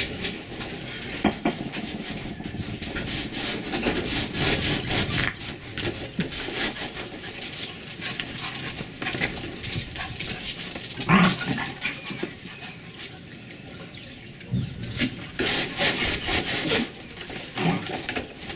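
Beagle puppies and a small long-haired dog scuffling about on a concrete porch, with claw clicks and irregular shuffling, and a few short barks, the loudest about eleven seconds in.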